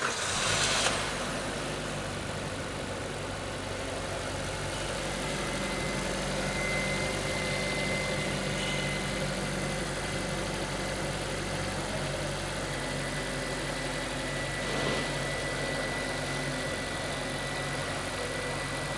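Maruti Suzuki Brezza's 1.5-litre four-cylinder petrol engine idling steadily and quietly, a little louder in the first second before settling. A faint steady high-pitched tone runs alongside through the later part.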